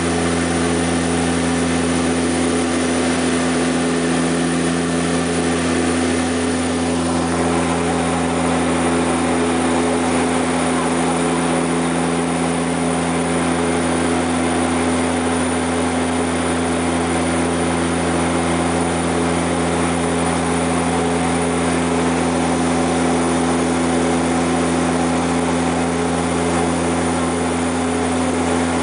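Steady drone of a DHC-6 Twin Otter seaplane's turboprop engine and propeller in flight, heard from inside the cabin.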